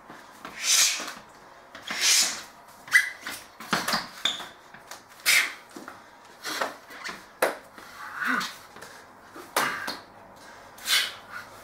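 Repeated short hissing bursts, about nine, roughly one a second, with a few sharp slaps in between: a person's forceful exhales and hand strikes against the body while performing kung fu movements.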